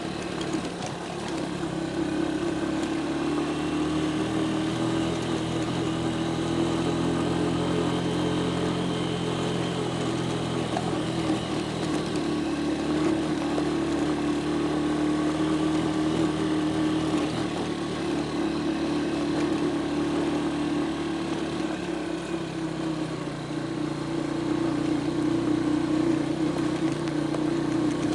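Vehicle engine running steadily under way on a rough dirt road, its pitch drifting gently up and down with speed.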